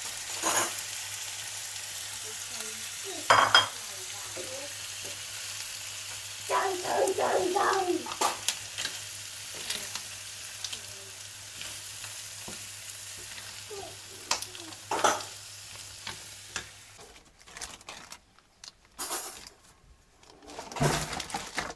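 Food sizzling in a frying pan, a steady hiss with a low hum underneath and a few sharp clinks of dishes; the sizzling and hum stop about seventeen seconds in.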